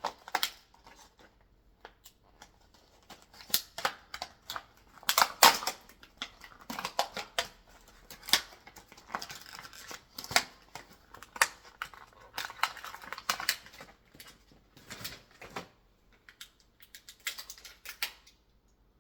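Plastic and cardboard packaging being handled as a small diecast car is freed from it: irregular clicks, taps and short bursts of crinkling.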